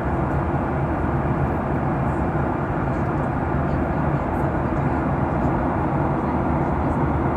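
Steady cabin noise of a Boeing 737-800 near cruising altitude: a constant rush of airflow with a low engine hum underneath, not changing in level.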